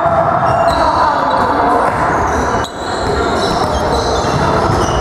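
Reverberant sports-hall noise: athletic shoes squeaking briefly and repeatedly on the gym floor over a ball bouncing.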